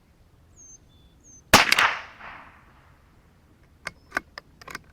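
A single .22LR rifle shot from a CZ 457 bolt-action rifle firing Winchester 36 gr copper-plated hollow points, a sharp crack with a short echoing tail, about one and a half seconds in. About two seconds later comes a quick run of sharp clicks.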